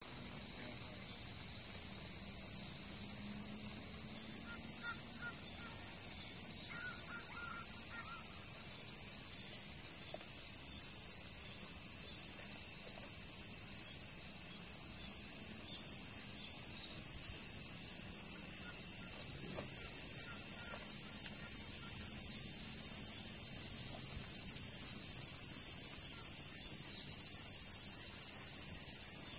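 Loud, steady, high-pitched insect chorus that carries on without a break.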